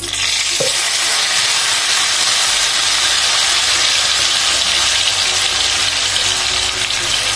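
Wet blended spice paste poured into hot oil, which starts sizzling suddenly and keeps frying with a steady hiss.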